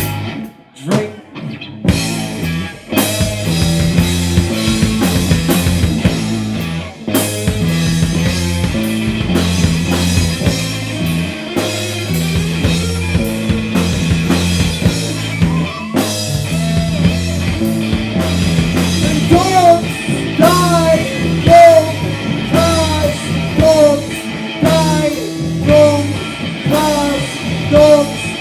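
Live rock band of electric bass, electric guitar and drum kit playing an instrumental passage. The band drops out briefly about a second in, then comes back in together. In the second half a high phrase with sliding, bent notes repeats over the beat.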